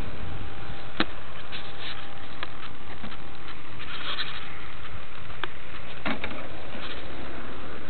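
Steady wind rumble and hiss on a small onboard camera's microphone, with a few sharp clicks and knocks from the model plane's airframe being handled.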